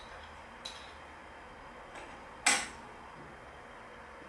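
A metal spoon and a small plate knocking lightly against a stainless steel mixing bowl as sugar is spooned in: a few faint clicks, then one sharp clink with a short ring about two and a half seconds in.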